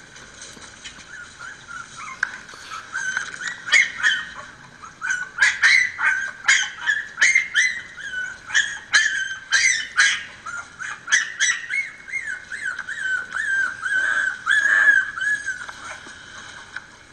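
Miniature Pinscher puppies yipping and whining, heard through a laptop's speaker: a quick run of short, high yips from about three seconds in, then long wavering whines that stop shortly before the end.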